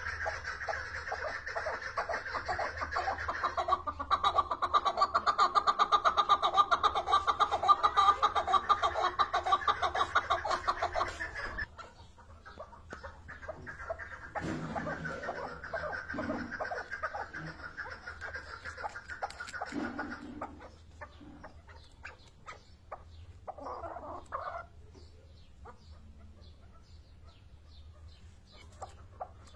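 Chukar partridge calling: a rapid, rhythmic run of clucking notes that builds in loudness and breaks off suddenly about twelve seconds in. A second, shorter bout follows, then fainter scattered calls near the end.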